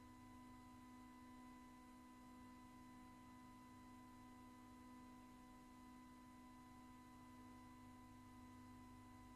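Near silence: a faint, steady hum of a few constant tones on an otherwise empty soundtrack.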